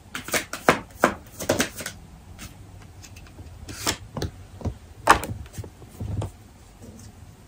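A tarot deck being shuffled by hand: a quick run of light card snaps and slaps for about two seconds, then a few single snaps spaced a second or so apart.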